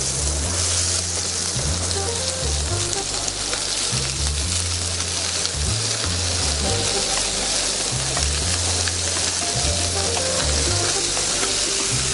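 Chopped bell peppers and onion dropping into hot oil in a cast-iron tagine base and sizzling, a steady frying hiss that starts the instant they go in, with stirring. Background music's bass line plays underneath.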